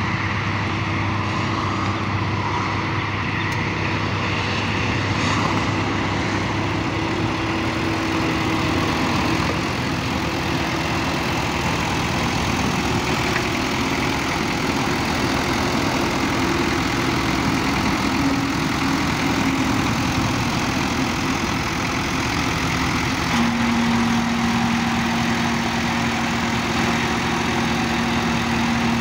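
Bobcat skid-steer loader's diesel engine running steadily at idle. A steady higher hum joins in about three-quarters of the way through.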